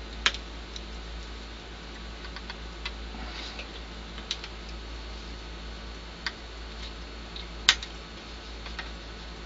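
Small flush cutters snipping the trimmed leads of newly soldered electrolytic capacitors on a circuit board: a scattered series of sharp clicks, the loudest near the end, over a steady low hum.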